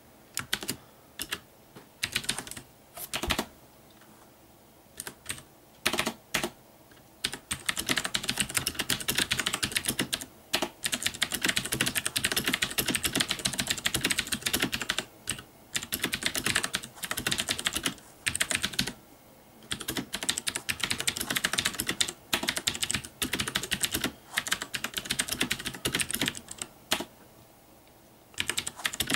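Typing on a Das Keyboard Professional Model S mechanical keyboard with clicky Cherry MX Blue switches, the keys struck hard. A few scattered keystrokes and pauses come first, then fast runs of steady clicking broken by short gaps.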